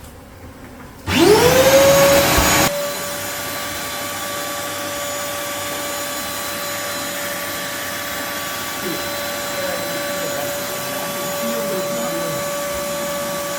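Vacuum used to suck up honeybees switching on about a second in: the motor spins up with a rising whine, runs loud for a moment, then settles to a steady whine as it draws the bees in.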